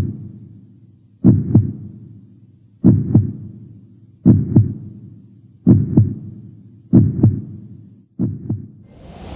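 Heartbeat sound effect: deep double thumps, lub-dub, about one pair every one and a half seconds, coming slightly faster toward the end. Near the end a rush of noise swells up.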